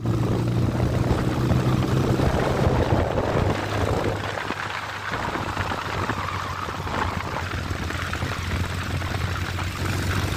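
Ural sidecar motorcycle's 650 cc flat-twin engine running steadily on the move, under heavy wind rush over the microphone. The engine note is strongest in the first few seconds.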